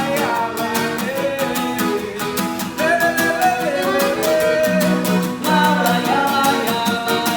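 Forró band playing between sung lines: a guitar carries the song, a melody line glides over it, and a steady high percussion tick keeps the beat.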